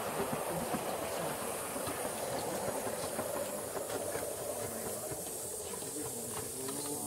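Gauge 1 live-steam model of a rebuilt Merchant Navy-class locomotive, 35003, hissing steadily as it runs slowly on the track, with a few faint clicks from the wheels in the second half.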